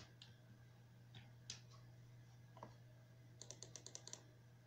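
Faint computer mouse clicks over a low steady hum: a few single clicks, then a quick run of about eight clicks in under a second near the end, from repeated clicks on a button.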